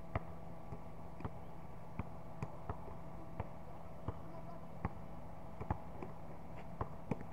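Basketball being dribbled on a court: about a dozen sharp bounces at an uneven pace, over a steady background hum.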